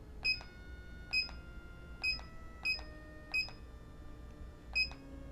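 Motorized turntable beeping about six times as its speed is stepped down from the remote. After each beep its motor whine settles on a new steady pitch, so it almost sounds like it's playing different music notes.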